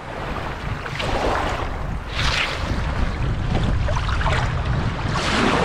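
Wind buffeting the microphone: a loud, steady rumble with gusts of hiss swelling and fading.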